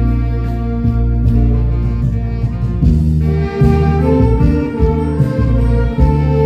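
Saxophone ensemble playing a slow melody in held notes over a low bass accompaniment.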